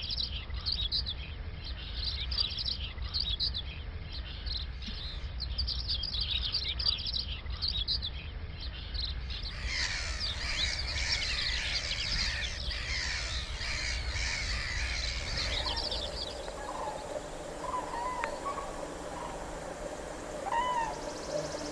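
Wild birds calling and singing: quick high chirps for the first nine seconds or so, a denser chorus of songbirds from about ten seconds in, then, from about sixteen seconds in, lower calls that rise and fall.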